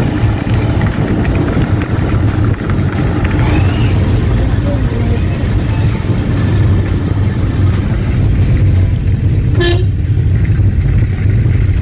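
Steady low rumble of a car's engine and road noise heard from inside the cabin while driving, with one short horn toot about ten seconds in.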